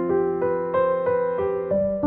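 Background piano music, soft notes played one after another.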